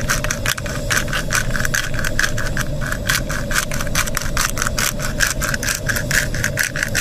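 Hand pepper mill being twisted over a pan, grinding with a rapid run of clicks, several a second, that stops near the end. A camping gas stove burner hisses steadily underneath.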